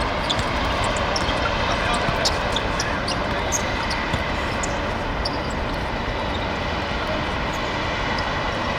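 Ambient sound of a seven-a-side football match on a hard pitch: a steady rumbling hiss with scattered short, sharp ticks and faint voices.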